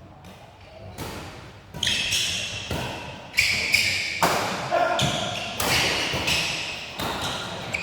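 Badminton rally: rackets striking a shuttlecock back and forth, sharp hits about one every three-quarters of a second, starting about a second in and getting louder.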